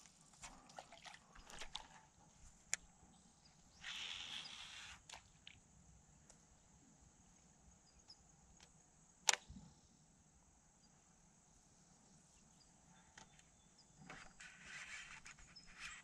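Fishing rod and reel handled during a cast and retrieve: scattered faint clicks, a short hiss about four seconds in, and one sharp click about nine seconds in, with quiet outdoor air between.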